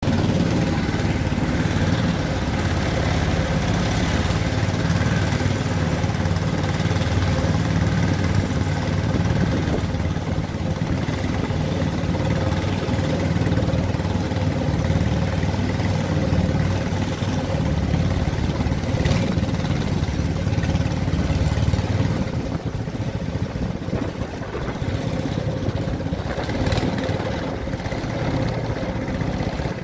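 Engine of a wooden river boat running steadily under way, with its low drone easing off about two-thirds of the way through.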